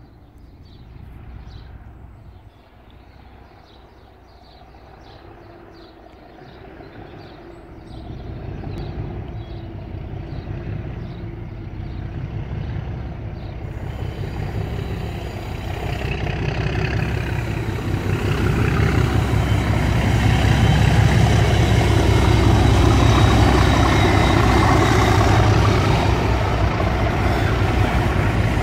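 Two Class 37 diesel locomotives with English Electric V12 engines approaching, their low engine drone growing steadily louder and loudest over the last ten seconds as they arrive.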